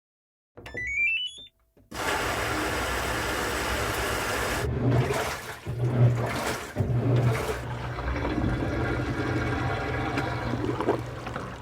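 A short run of electronic beeps stepping upward in pitch, then a loud, steady rushing noise like water flowing, with a low hum beneath it and several louder surges partway through.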